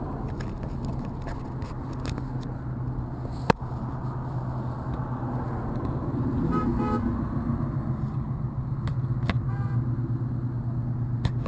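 Road traffic running past steadily, with a car horn honking briefly about two-thirds of the way through and a fainter second honk a couple of seconds later. A single sharp click about a third of the way in.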